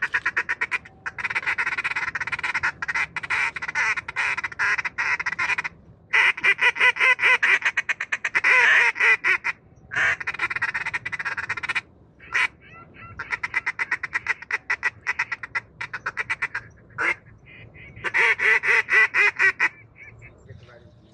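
Duck call blown in about five runs of rapid quacking chatter, each a few seconds long, with short breaks between them.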